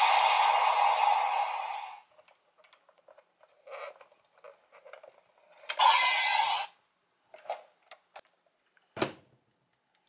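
Toy Kamen Rider belt buckle playing an electronic sound effect through its small speaker, which stops about two seconds in. Then scattered clicks of plastic being handled, a click and a second short burst of toy sound as a card is slid in about six seconds in, more clicks, and a dull knock near the end.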